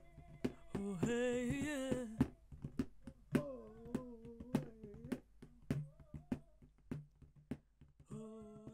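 Credits music: a wordless vocal melody of long, wavering held notes over regular sharp percussion hits about two a second, fading away near the end.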